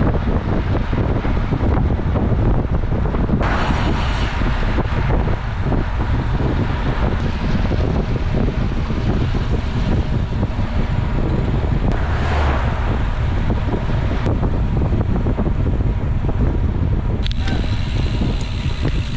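Steady wind rumble on the microphone of a camera on a moving road bicycle, with brief louder rushes about four and twelve seconds in.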